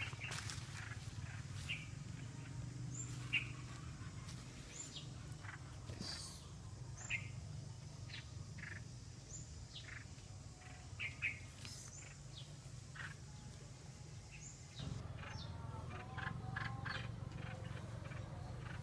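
Small birds chirping: many short, scattered calls and a few brief high falling whistles, over a steady low hum.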